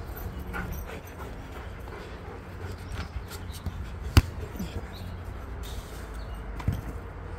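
Two thumps: a sharp, loud one about four seconds in and a softer one near the end, with a few faint clicks over a steady low rumble.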